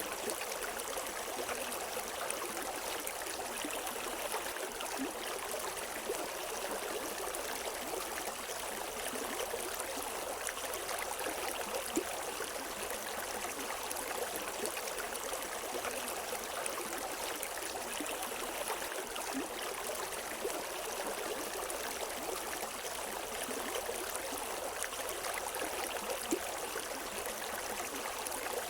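River water flowing over rocks: a steady rushing and babbling with small splashes, and no birds.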